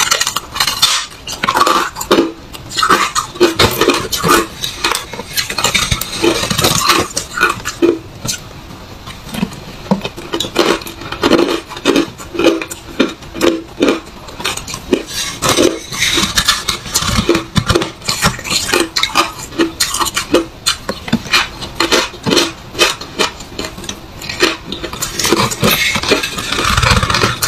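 Freezer frost crunching and crumbling: many short, irregular crisp crunches as mouthfuls of frost are chewed and the frost block is scraped and broken up by hand.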